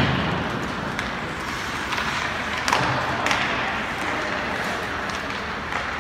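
Ice hockey play in an echoing indoor rink: a steady hiss of skates and the arena, with a handful of sharp clacks of sticks on the puck and boards.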